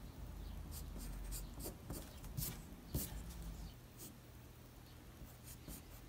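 Pencil scratching quietly on paper in short, irregular sketching strokes, busier in the first half and thinning out later.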